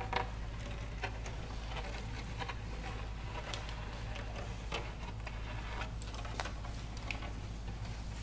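Faint, irregular clicks and taps of gloved hands handling glue tubes and foam wing parts, over a steady low hum.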